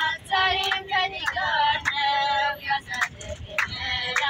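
A high singing voice carrying a wavering, ornamented melody in phrases, with short sharp clicks between them, as in a recorded song.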